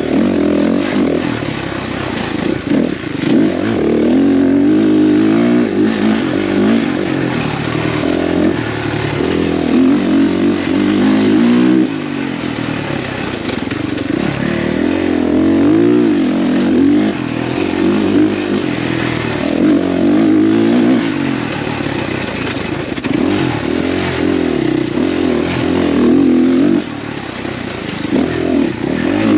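Dirt bike engine at race pace, heard from on the bike. Its pitch rises and falls constantly with throttle and gear changes, with brief drops in level about twelve seconds in and again near the end.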